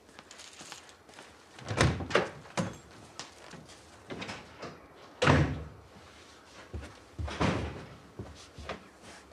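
Household thuds and knocks: a door closing hard, the loudest thud a little over five seconds in, with a cluster of three thuds about two seconds in. Heavy footsteps thump on wooden stairs near the end.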